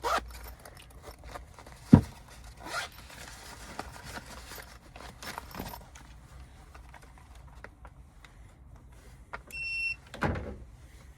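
Hand work on an air handler's wiring: scattered clicks and scrapes of tools and wires, with a sharp knock about two seconds in. A short electronic beep sounds near the end, followed by a brief rustling swell.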